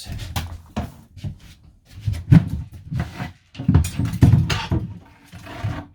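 An irregular series of knocks, thuds and rattles as an interior fitting in the van is worked loose and pulled off by hand. The heaviest thuds come about two seconds in and again near the middle.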